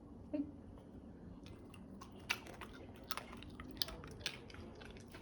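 A dog chewing and eating noodles, with irregular crisp crunches and smacks from about two seconds in. A single short knock comes about half a second in.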